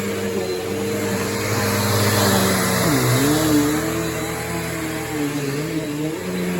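Bissell PowerForce Helix Turbo bagless upright vacuum running, a steady motor whine with rushing air; about three seconds in the motor pitch drops and then wavers up and down.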